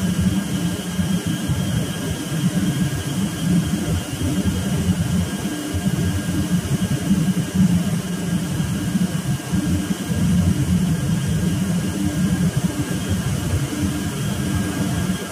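Steady, loud drone of a ship's running machinery, with a faint steady high whine above it.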